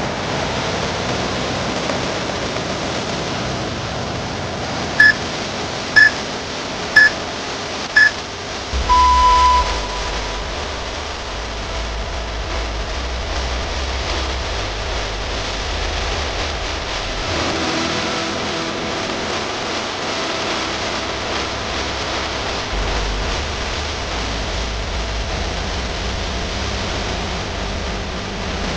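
Workout interval timer beeping: four short beeps a second apart, then one longer, lower beep, the countdown that marks the switch between exercise and rest. Steady background noise throughout.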